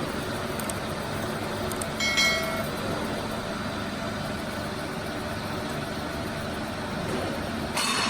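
Factory machining noise: machinery running steadily, with a short metallic ring about two seconds in and a brief metallic clank near the end.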